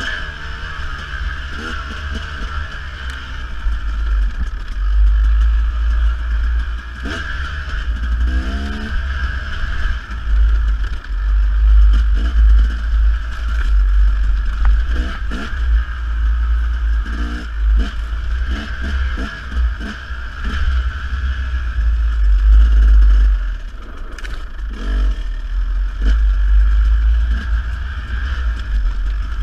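Dirt bike engine running under load and revving up through the gears several times, with heavy wind buffeting on the microphone and scattered clatter of stones and the bike's parts.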